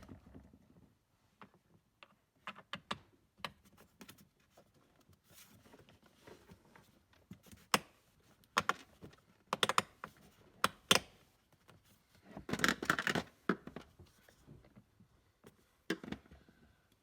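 Scattered clicks, knocks and scrapes of hard plastic parts being handled and fitted together, with a longer, denser scraping rattle about three quarters of the way through.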